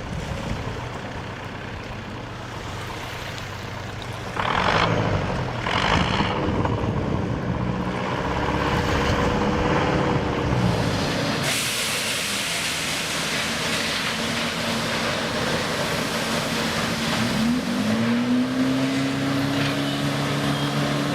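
An engine running with a steady hum, revving up in a rising glide about seventeen seconds in, with two short hissing bursts about four and six seconds in.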